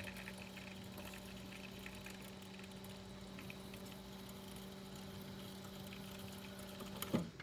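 H2FX Excel hydrogen infusion machine running with a steady hum while water flows and pours from it. It stops suddenly with a short click near the end.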